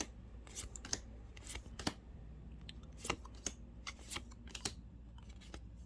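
Magic: The Gathering cards handled one by one, each flipped or slid off the stack with a light, sharp snap, about two or three a second at an uneven pace.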